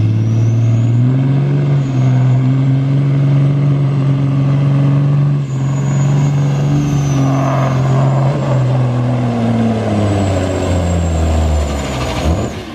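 Semi truck's diesel engine running hard under full load as it drags the pulling sled: a steady deep drone with a faint high whistle above it. The engine note sags lower over the last few seconds and eases off near the end.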